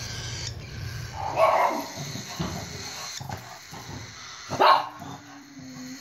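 Two short, loud animal calls, one about a second and a half in and another near five seconds, with faint scuffling between them.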